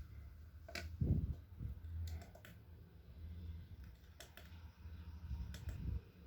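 Scattered light clicks and handling noise from a small plastic object being handled, with a soft thump about a second in.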